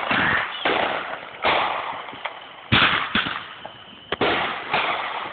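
Fireworks going off: a string of about seven sharp bangs, one every half second to a second, each fading out in a noisy tail. The loudest comes about halfway through.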